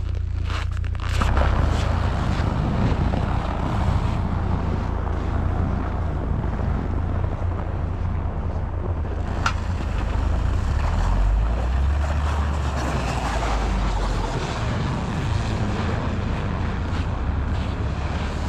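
A vehicle running: a steady low engine rumble under rushing road and wind noise, with the engine note shifting for a few seconds past the middle. A single sharp click comes about nine and a half seconds in.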